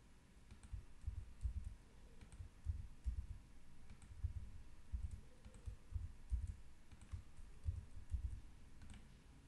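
Computer mouse clicks and keyboard keystrokes, irregular and a few every second, each with a dull low knock on the desk, as hex colour values are selected and replaced field by field.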